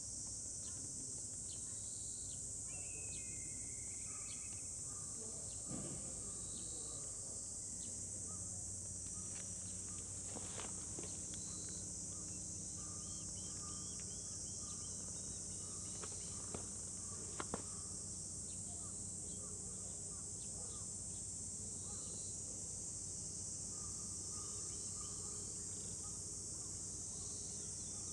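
Steady high-pitched drone of insects, with a few faint clicks. A low hum comes in about eight seconds in.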